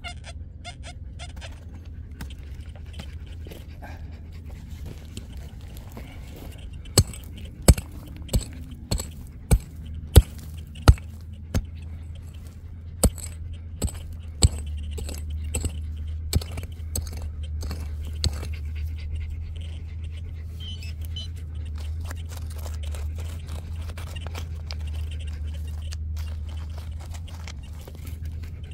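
A hand digging tool strikes hard ground about a dozen times in quick, irregular succession, with fainter scraping and clicks afterwards, over a steady low rumble. This is the digging out of a detector target.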